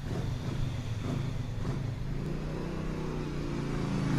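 Dodge Ram 1500 pickup's engine running and revving as the truck drives off across sand. Music fades in near the end.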